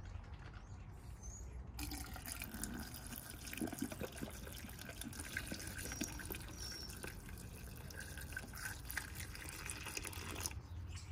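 Windshield washer fluid being poured from a jug into the reservoir, a steady pouring sound that starts about two seconds in and stops just before the end.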